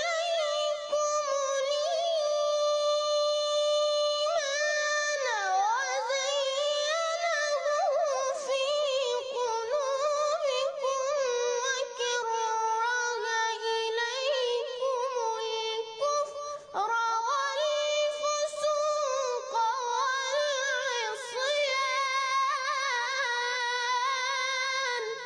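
Qur'anic recitation in melodic tajwid style: a single voice chanting long, drawn-out phrases on high held notes, ornamented with trills and gliding pitch bends, with one brief break about two-thirds of the way through.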